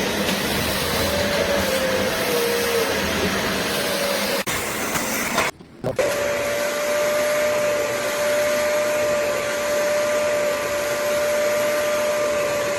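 BISSELL Little Green portable carpet and upholstery cleaner's suction motor running with a steady rushing noise. It stops briefly about five and a half seconds in, then runs on with a steady high whine.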